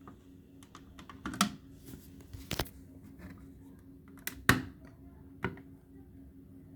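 Plastic clicks from the buttons and casing of a Danfoss programmable room thermostat being pressed and handled: about eight short, sharp clicks at uneven intervals, three of them louder, about one and a half, two and a half and four and a half seconds in.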